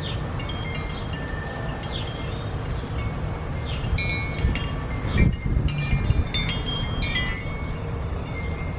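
Outdoor ambience: a steady low rumble of wind on the microphone, with scattered light ringing tinkles that come thickest about four to seven seconds in.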